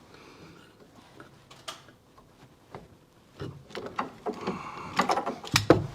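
Compact hand PEX crimping tool being worked on a copper crimp ring: quiet handling at first, then a run of metallic clicks and scraping in the second half.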